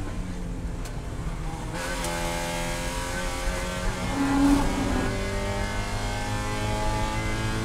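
Spec Miata race car's four-cylinder engine heard from inside the cockpit, running hard at about 5,500 to 6,000 rpm as the car slows for a corner and then accelerates out, its pitch climbing over the last few seconds. A brief louder note stands out about halfway through.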